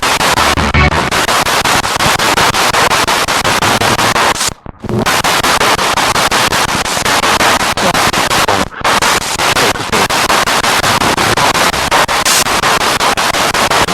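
Spirit box radio sweeping through stations: loud, choppy static that steps rapidly from channel to channel, with two brief drop-outs, one about four and a half seconds in and one near nine seconds.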